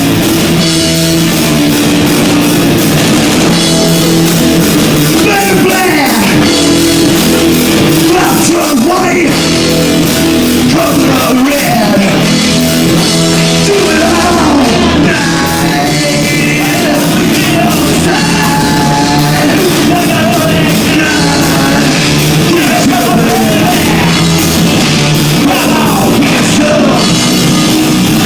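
A rock band playing loudly with drums, guitar and singing, recorded on an overdriven phone microphone so the sound is distorted.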